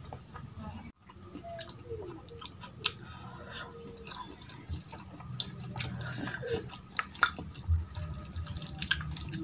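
Wet, sticky eating sounds: fingers squish and mix rice with runny dal on a steel plate, with scattered wet clicks from lip smacks and chewing as handfuls are eaten.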